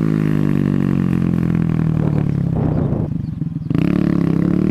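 Honda Grom's 125 cc single-cylinder engine running while riding. About two seconds in the note breaks up and drops away briefly, then picks back up with a rise in revs.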